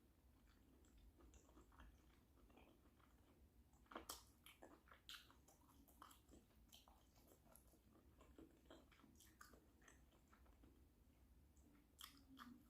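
Faint chewing of a shrimp boil: a person's wet mouth clicks and smacks, a few louder bites about four seconds in and again near the end.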